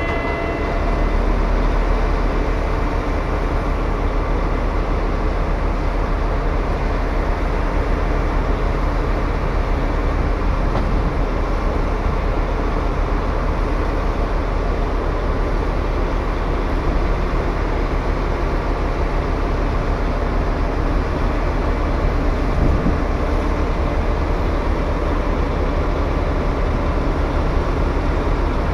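Large drum wood chipper driven by a 520 hp Volvo TAD1242 diesel engine, running steadily with a constant low drone.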